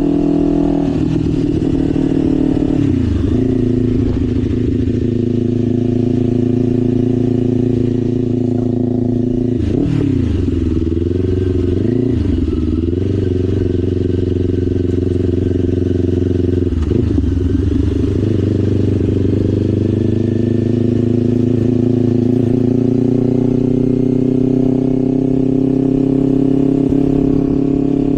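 Kawasaki Ninja 500's parallel-twin engine running under way. The engine note dips and comes back up three times, about three seconds in, around ten to twelve seconds, and around seventeen seconds, then rises slowly toward the end as the bike gathers speed.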